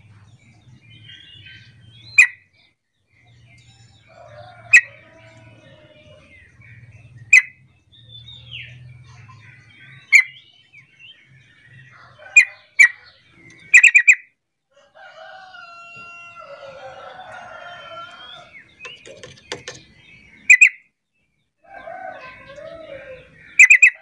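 Yellow-vented bulbul calling: loud, very short sharp notes about every two to three seconds, with a quick run of several near the middle, among softer chattering notes.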